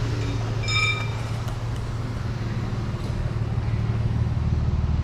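Ford AU Falcon's engine idling with a steady low hum. A short high beep sounds about a second in.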